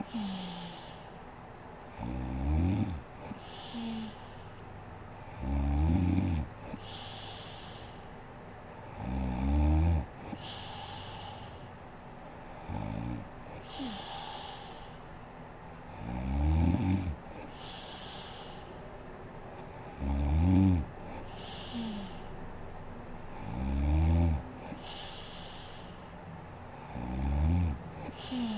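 A sleeping woman snoring steadily: eight loud snores about every three and a half seconds, one weaker near the middle, each followed by a breathy hiss.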